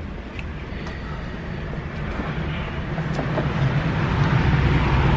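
A steady low rumble that grows gradually louder.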